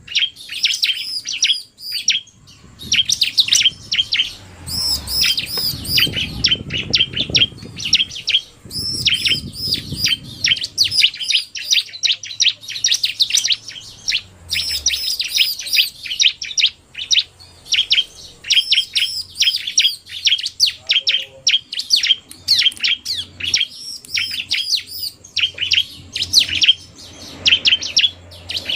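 Bar-winged prinias (ciblek) calling without pause: a male's agitated, rapid chirping mixed with a female's fast, sharp calls, a dense run of short high-pitched chirps. A faint low rumble lies under the calls for several seconds early on.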